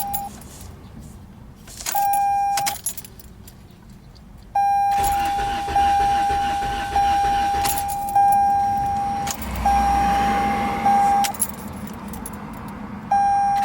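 Car's electronic warning chime sounding in a steady series of single tones about one every 1.2 seconds, with two short pauses in the first few seconds. A brief low rumble comes in about ten seconds in.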